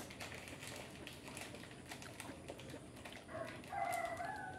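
Quiet eating sounds: a metal spoon clicking and scraping on a plate, with chewing. About three seconds in, a brief high-pitched voice-like sound comes in and lasts a second or so.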